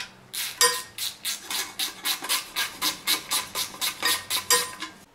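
Small hand ratchet clicking in a steady run, about five clicks a second, as 10 mm bolts are snugged down (not yet torqued) into the engine's oil girdle. A little after the start and again near the end, the metal socket clinks with a short ring.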